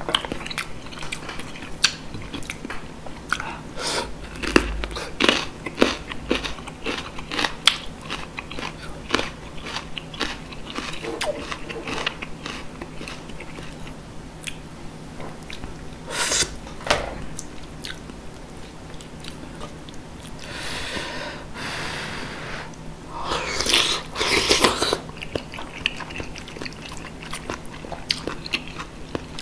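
Close-miked eating of spicy beef soup with rice: steady chewing and wet mouth clicks, with a few longer, louder mouth noises about two-thirds of the way through.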